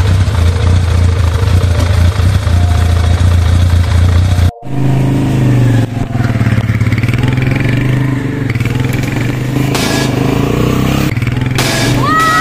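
Small motorcycle engine running loudly and revving. The sound breaks off sharply about four and a half seconds in and picks up again at a steadier, higher pitch.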